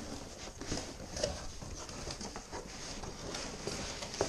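Cardboard shipping box being handled by hand: irregular rustling, scraping and light knocks as the flaps are pulled back and the box is moved.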